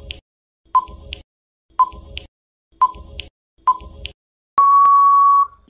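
Quiz countdown-timer sound effect: a short beep about once a second, four times, then one longer, steady beep of about a second near the end, marking time up.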